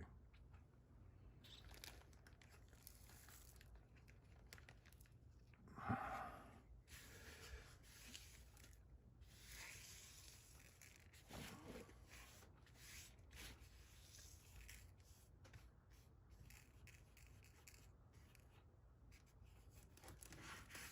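Faint, irregular rustling and rubbing as the diamond painting kit's packaging and bags of drills are handled, with a louder rustle about six seconds in and a smaller one near the middle.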